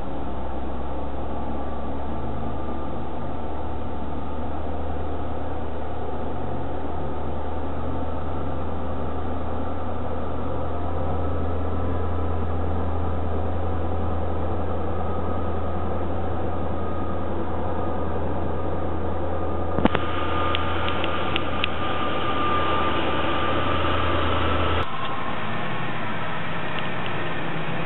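Voith Gravita diesel-hydraulic shunting locomotive running with a steady low hum as it hauls tank wagons. About two-thirds through, sharp clicks and a thin high squeal from the train's wheels join in for some five seconds, then the sound changes abruptly to a softer, steady rumble.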